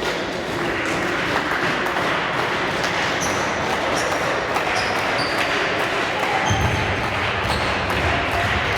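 Youth basketball game in a sports hall: the ball bouncing on the court, shoes squeaking in short high chirps, and a steady hubbub of players and spectators, all echoing. A low rumble joins in after about six and a half seconds.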